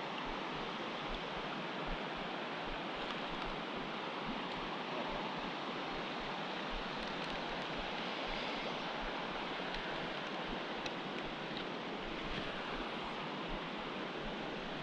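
Creek water in high flow rushing steadily over rocks, a constant even rush.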